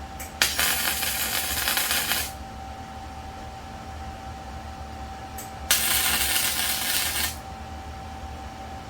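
Arc welding on steel: two short welds, each a crackling sizzle lasting under two seconds, with a faint steady hum in between.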